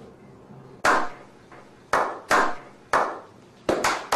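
A small group of people doing a slow clap: single hand claps about a second apart, quickening near the end toward faster applause.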